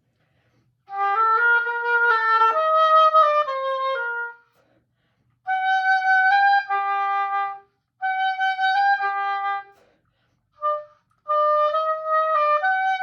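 Solo oboe playing a melody in short phrases of a few held notes each, stopping and restarting about four times, with one brief single note between phrases: the opening of a piece being practised.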